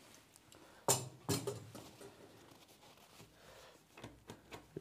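Faint rustling of cloth being handled as a stitched fabric pocket is turned right side out and its corners are worked out by hand, with a louder, sharper rustle about a second in.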